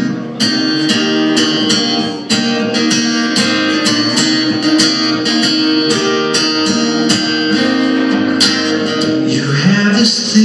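Acoustic guitar strummed in a steady rhythm, about three strokes a second, as an instrumental break in a live song; singing comes back in near the end.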